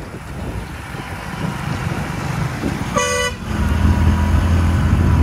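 Tata school bus rounding a hairpin bend, its diesel engine running. One short horn blast sounds about three seconds in, and after it the engine grows louder and deeper as the bus passes close.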